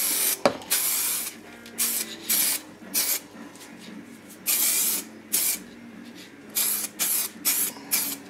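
Fan-nozzle aerosol can of Pro Grip adhesion promoter spraying in short hissing bursts, about ten of them, the longest a little past the middle, as a light coat goes on.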